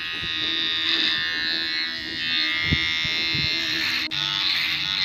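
Cordless electric hair clipper buzzing steadily as it trims short hair around the ear and sideburn.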